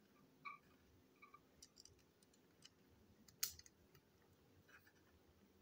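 Faint, scattered clicks of small plastic toy-train parts being handled and pried apart: a Plarail chassis with its wheels. The sharpest, loudest click comes a little past halfway.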